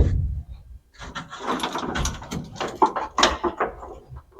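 Parts being handled and moved: an irregular run of clattering knocks and rattles.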